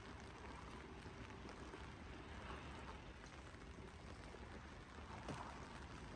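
Steady rainfall, an even hiss with scattered drop ticks and a low rumble underneath; one sharper tap about five seconds in.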